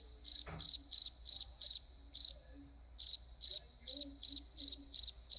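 Cricket chirping, a high-pitched chirp repeated about three times a second, with a short pause around the middle.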